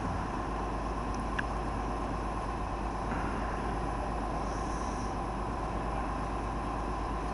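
Steady outdoor noise with a low, even engine-like rumble and a faint steady tone, no bangs or knocks.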